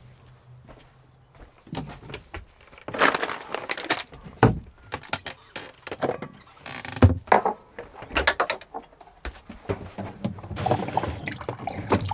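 Irregular clicks, knocks and clatters of someone moving about in a camper van's kitchen, opening wooden cabinet doors and handling things, with keys jangling on a belt.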